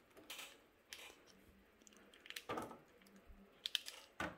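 Faint handling noises: a few soft clicks and rustles as a plastic action figure is gripped and moved in the hand.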